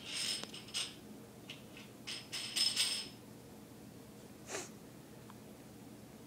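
Metal bottle cap scraping and skittering as a cat bats it about on a doormat, in two short clusters of rattly scrapes, the second about two seconds in and the loudest. A brief breathy sound follows about four and a half seconds in.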